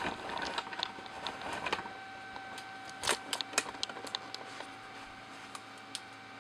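Camera-handling noise as the camera is tilted: light rubbing and a few sharp clicks and knocks, then small plastic clicks as a hand touches the toy figure near the end, over a faint steady tone.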